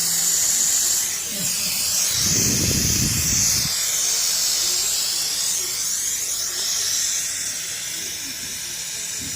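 Loud, steady hiss of compressed air rushing out of the pump made from a refrigerator compressor, with a short low rumble about two seconds in.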